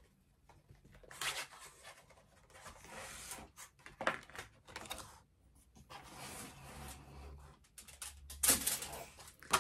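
Stiff cardstock being folded and handled, rustling and scraping in several short bouts with quiet gaps between.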